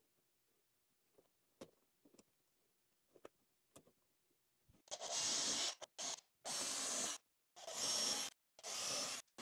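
A few faint clicks as the metal repair strap is handled and set against the wood. Then, about five seconds in, a cordless drill boring pilot holes through the strap's holes into the wooden joist, in four short runs of under a second each.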